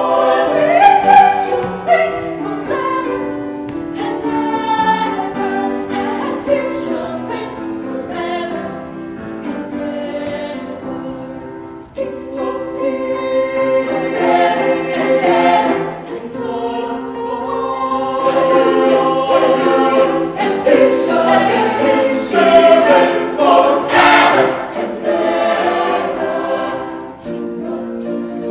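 Mixed choir of women and men singing in harmony, holding full sustained chords. The singing drops away briefly about twelve seconds in, then comes back and grows louder.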